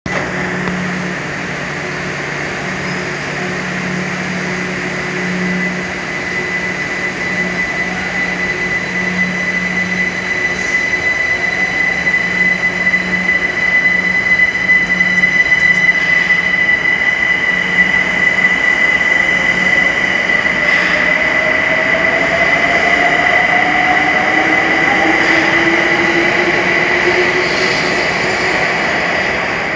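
Class 378 Electrostar electric multiple unit pulling away from a station over continuous rail noise, with a steady high-pitched tone throughout. About two-thirds of the way through, a whine starts to rise in pitch as the train gathers speed.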